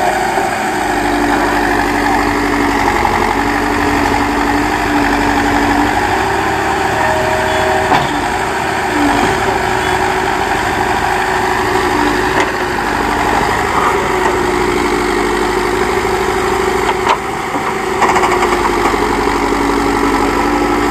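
Diesel engine of a backhoe loader running steadily, its pitch stepping up and down as it works, with a few short knocks.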